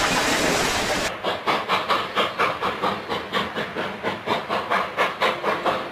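Steam locomotive train: a steady rushing hiss at first, then, about a second in, the locomotive chuffing in an even rhythm of about four exhaust beats a second.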